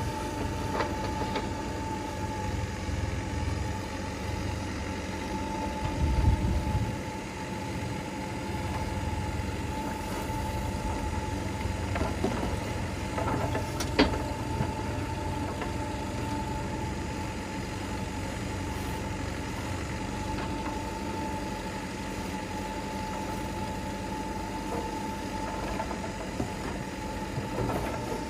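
Diesel engine of heavy earth-moving machinery running steadily, with a thin steady high tone over it. There is a brief low surge about six seconds in and a single sharp click near the middle.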